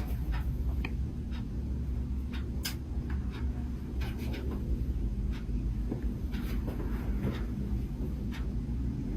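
Soft scratching and rustling with scattered light clicks, from hands shifting over clothing as a chiropractor handles a patient, over a steady low hum.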